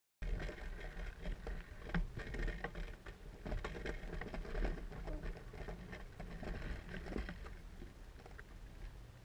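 Child's bicycle ridden over paving: a steady low rumble with many irregular small clicks and knocks from the bike rattling over the ground.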